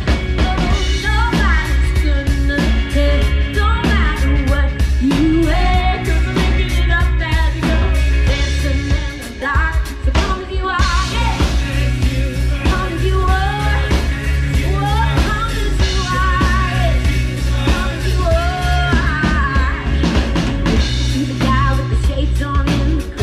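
Live amplified rock band: a woman singing over electric guitars, bass and a drum kit with a steady heavy beat.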